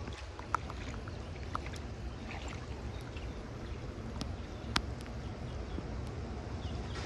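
Wind rumbling on a phone microphone outdoors in light rain, with a few scattered sharp taps.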